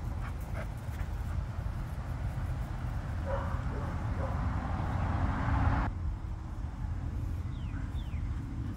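Dogs barking in a few short bouts, about a second in and again around three to four seconds in, over a steady low rumble.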